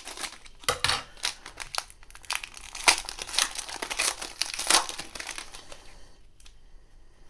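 Plastic wrapper of a trading-card pack being torn open and crinkled, a run of quick sharp crackles that dies down near the end.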